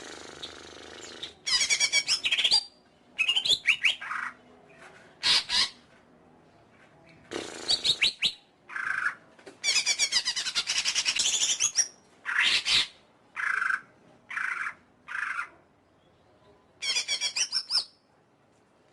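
Cucak ijo (green leafbird) singing: a string of loud, varied phrases of fast repeated chirps and trills, each a fraction of a second to about two seconds long, broken by short pauses.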